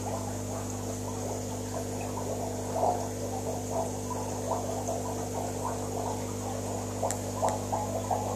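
Aquarium pump humming steadily, with water bubbling in irregular spurts over it.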